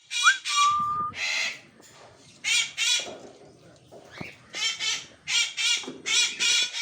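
Grey parrot squawking: a string of loud calls, mostly in quick pairs, with a short whistle near the start that rises and then holds steady.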